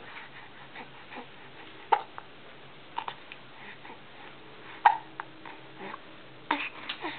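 Hiccups: short, sharp hiccups about every one to two seconds, four in all, the loudest about five seconds in.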